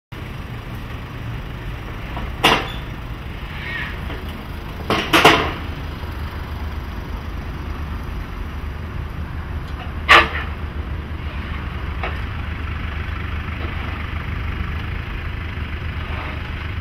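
Mercedes GLE SUV crawling over wooden and metal obstacle ramps: a steady low rumble of the vehicle at low speed, with sharp knocks and clatters as the wheels load the ramps, one about two and a half seconds in, a double knock around five seconds and another around ten seconds.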